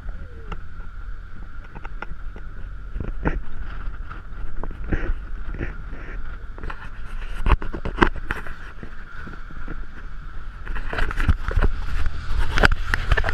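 Jeepney ride heard from its roof: a low engine and road rumble with wind noise and a steady whine, broken by frequent irregular knocks and rattles as the vehicle jolts along a rough mountain road, thickest near the end.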